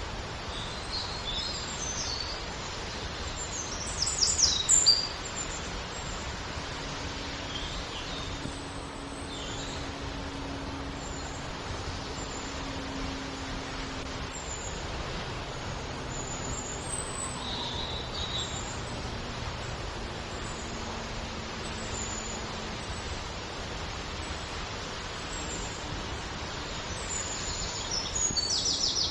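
Steady rush of falling water with small birds chirping over it: a cluster of quick high chirps about four seconds in and more near the end. A faint low hum comes and goes in the middle.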